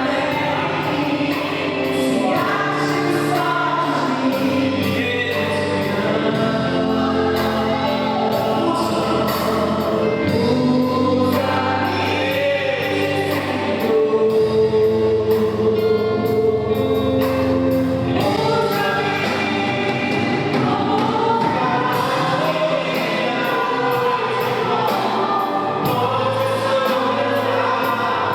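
Live gospel worship song: voices singing together over instrumental accompaniment with a steady beat.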